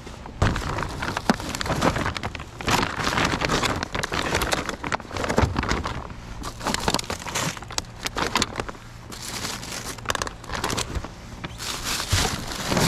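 Plastic bags and food packaging rustling and crinkling in irregular bursts, with scattered knocks, as discarded goods are rummaged through and handled.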